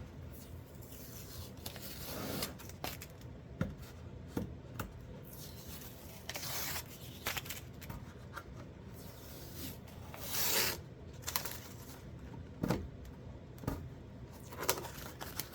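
Hands rubbing over and handling a wooden slab of blue pine: scattered light knocks and clicks, with a couple of longer brushing swishes partway through.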